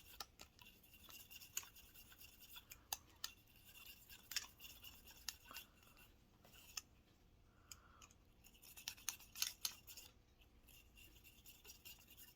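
A .357 barrel brush scrubbing in and out of the chambers of a revolver cylinder: faint, irregular brushing strokes with light clicks.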